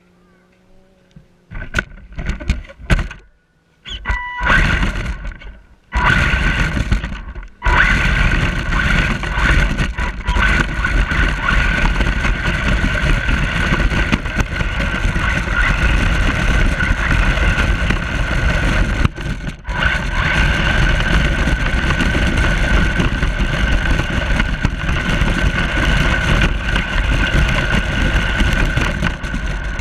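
Radio-controlled toy truck running, in a few short bursts over the first six seconds and then continuously with a steady high whine, briefly cutting out twice.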